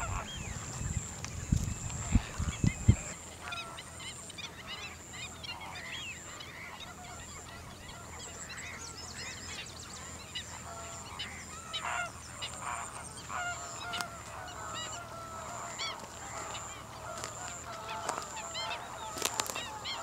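Flock of greater flamingos calling: a constant chatter of many overlapping, goose-like honks. For the first three seconds wind buffets the microphone.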